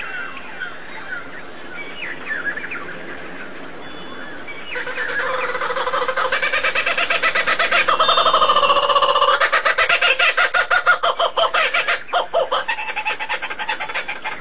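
Bird calls: short sweeping chirps, then a louder run of pitched calls about five seconds in that breaks into rapid pulsing notes near the end.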